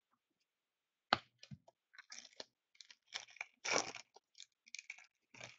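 Trading-card pack wrapper crinkling and cards being handled: a string of irregular crackles and rustles starting about a second in.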